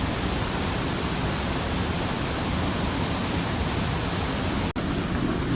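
Steady rushing of water in a canal lock chamber, even and unbroken, with a brief cut-out near the end.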